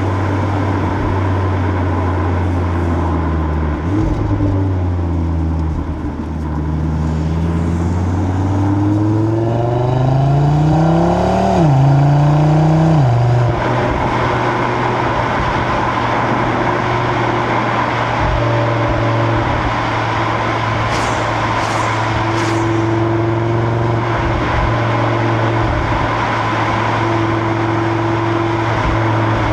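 Exhaust of a stock 2025 Audi RS3's turbocharged 2.5-litre five-cylinder, recorded at the rear of the car while cruising at speed. About a third of the way in the engine note rises under a gentle acceleration, then drops in two quick upshifts and settles into a steady drone, with road and wind noise underneath.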